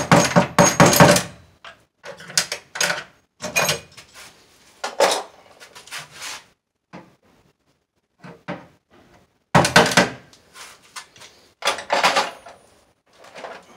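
Irregular bursts of knocking, clattering and rustling from hand tools and electrical cable being handled, loudest about a second in and again near ten seconds in.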